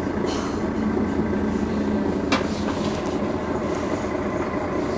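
Mercedes-Benz Citaro Facelift city bus engine idling steadily while the bus stands still, a low even hum. A single sharp click comes a little over two seconds in.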